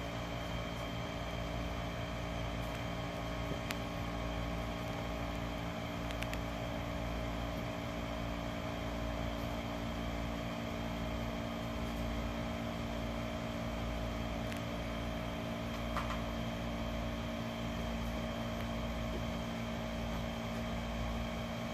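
A steady mechanical hum from a running machine, with several steady tones over a low rumble, and a few faint ticks.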